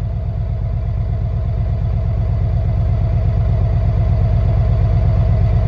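Peterbilt truck's diesel engine running with a steady, fast low pulsing and a constant hum, heard from the driver's seat and slowly getting a little louder.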